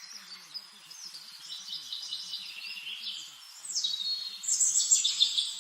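Birds singing: high chirps and buzzy, fast-pulsed trills, growing louder about two thirds of the way in.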